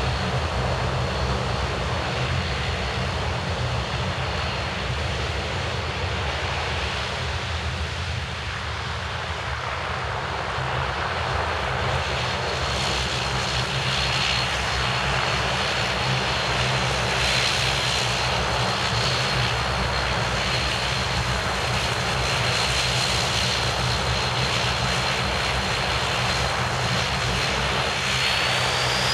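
Bombardier Dash 8 Q400's two Pratt & Whitney Canada PW150A turboprops running at taxi power: a steady high whine over the low drone of the six-bladed propellers. Near the end the whine starts rising in pitch as power comes up for the take-off run.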